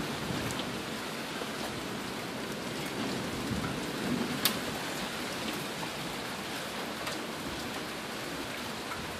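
Steady rain falling, an even hiss with scattered small drop ticks and one sharper tick about four and a half seconds in.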